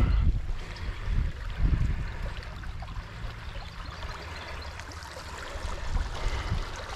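Water flowing out through a breach dug in a beaver dam as the flooded pond drains. Wind rumbles on the microphone over the first couple of seconds.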